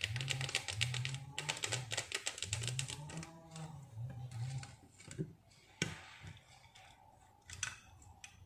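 Rapid light tapping and rustling as turmeric powder is shaken out of a sachet into a small glass bowl, then a few scattered clicks of a plastic spoon against the glass as the mixture is stirred.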